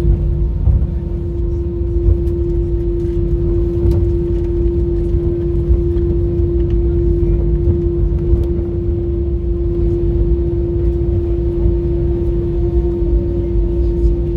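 Airliner cabin noise while the plane rolls and taxis after landing: a steady jet engine hum with one constant drone tone over a low rumble from the wheels on the pavement.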